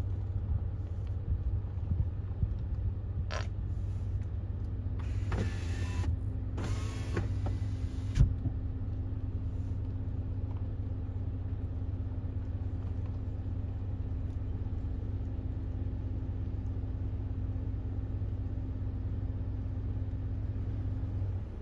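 Steady low rumble of a vehicle running, with a steady hum joining about four seconds in and a few short whining squeaks between about five and eight seconds in.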